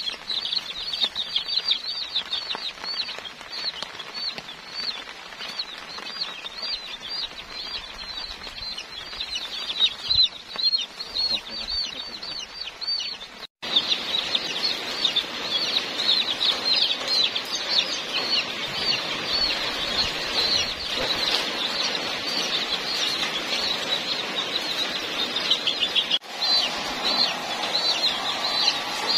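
A crowd of young chicks peeping nonstop, short high falling chirps several a second. Near the end a hair dryer starts blowing beneath the peeping.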